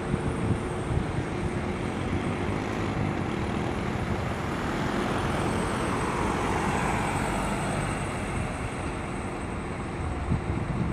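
Idling bus engines making a steady low hum under general traffic noise, with a vehicle passing about halfway through that swells and falls in pitch as it goes by.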